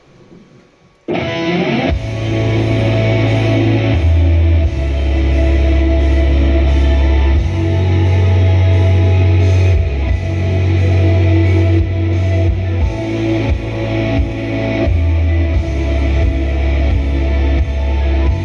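Loud rock music starts suddenly about a second in: the intro of a song, with distorted electric guitar, a deep bass line and a steady drum beat.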